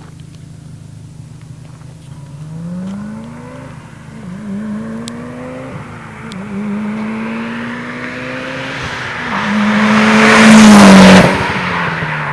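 Mitsubishi Lancer Evolution IX's turbocharged four-cylinder with a Megan Racing turbo-back exhaust accelerating hard past, its pitch climbing through a couple of gear changes. It is loudest as it passes, about ten to eleven seconds in, then drops in pitch as it pulls away.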